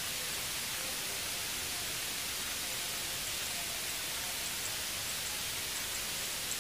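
Steady, even hiss of open-air background noise, with a few faint, brief high chirps scattered through it.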